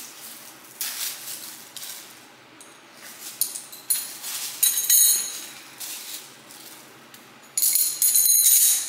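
A bundle of gold metal drinking straws jingling and clinking against each other as they are handled, in bursts, loudest near the end.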